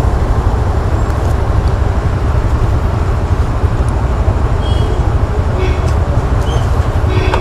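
Motorcycle engine idling with a steady low rumble amid highway traffic.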